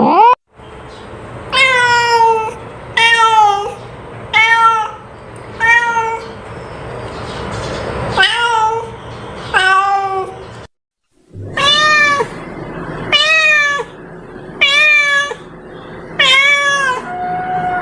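A cat meowing over and over, about ten meows, each under a second long and rising then falling in pitch.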